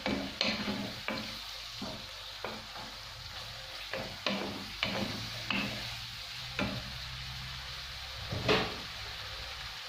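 Wooden spatula stirring minced meat in a spiced tomato sauce in a frying pan, with a dozen or so irregular scrapes and knocks against the pan; the loudest comes near the end. Under them runs the steady sizzle of the meat and sauce frying.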